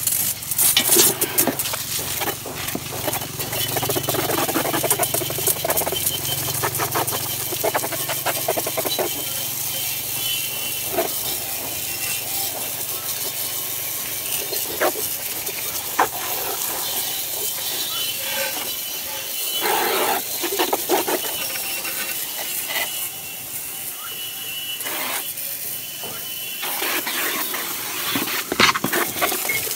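A bare Yamaha 125ZR swingarm being washed in a plastic tub: water hissing and splashing, with repeated knocks and scrapes of the metal arm against the tub as it is handled.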